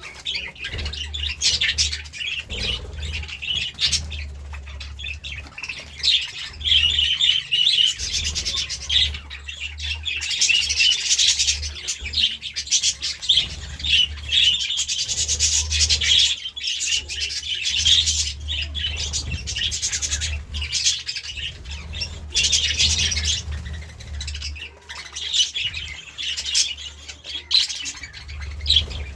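Budgerigars chirping and warbling continuously, a busy stream of rapid chirps and squawks, with a steady low hum underneath.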